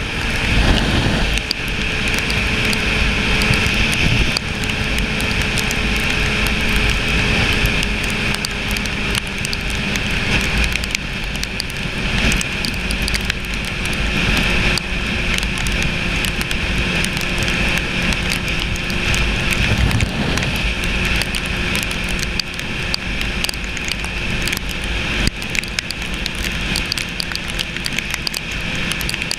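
Sport motorcycle cruising on a wet road, heard from a bike-mounted camera: wind rushing and crackling over the microphone, with a steady engine tone underneath that slowly drops in pitch.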